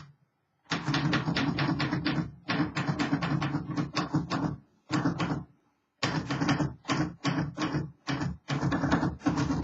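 Refurbished 1948 Royal Quiet De Luxe manual typewriter being typed on: quick runs of keystrikes, several a second, starting about a second in and broken by a few short pauses.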